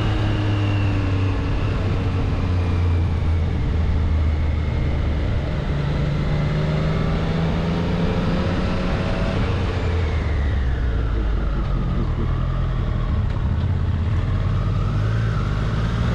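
Triumph Street Triple 765 RS inline three-cylinder engine running on the move, its note sinking slowly and then rising again near the end as the throttle is eased and opened.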